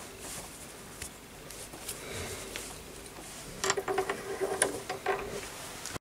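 Light clicks and taps of small steel parts being handled at a bench vise, bunched together a little over halfway through.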